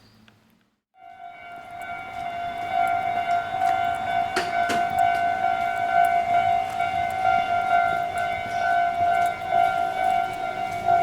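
Japanese railway level-crossing warning alarm ringing steadily. It starts about a second in, after a brief gap, and a single sharp knock comes about four seconds in.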